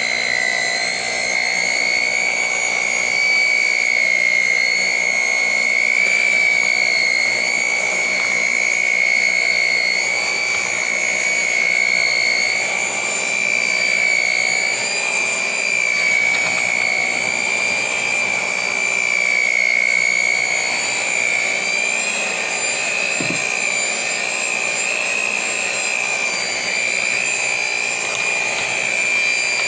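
Electric mixer running steadily with a high motor whine while beating a batter of eggs, sugar, flour, oats and apple.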